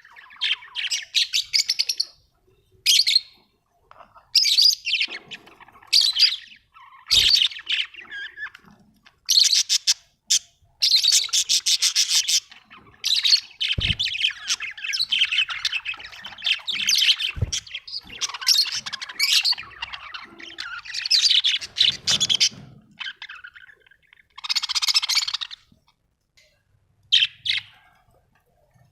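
Budgerigars chirping and warbling in short, irregular bouts with pauses between them. Three brief dull knocks are heard along the way.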